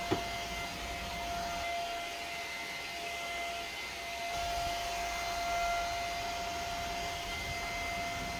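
Stick vacuum cleaner running steadily with a high motor whine as its floor head is pushed over ceramic tiles, with a sharp click just after the start.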